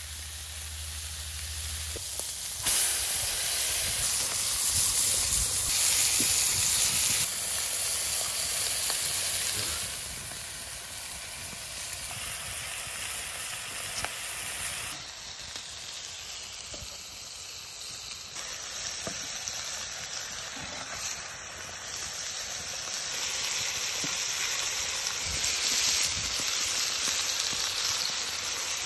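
Lamb ribs, potato slices and tomato slices sizzling on a hot slate slab over a wood fire: a continuous frying hiss with small pops. It steps abruptly louder and quieter a few times.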